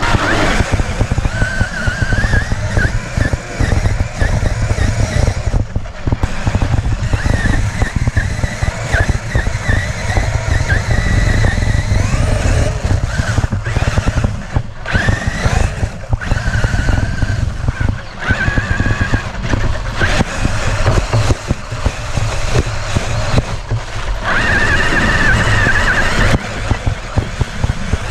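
Electric RC truck driving hard: a motor and gear whine rising and falling with the throttle over a heavy rumble of tyres and terrain, with a few brief let-offs.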